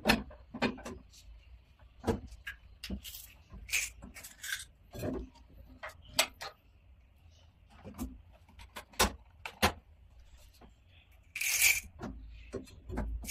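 Handling noise: scattered clicks and knocks of plastic handpiece connectors and hoses being fitted into the front panel of a cosmetic body-contouring machine, with a longer rustle a little before the end.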